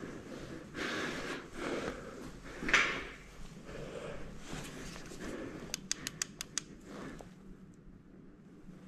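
Footsteps and shuffling on old wooden floorboards and debris, about one a second, with a louder scrape near the middle. Around six seconds in comes a quick run of about six sharp clicks, after which it goes quieter.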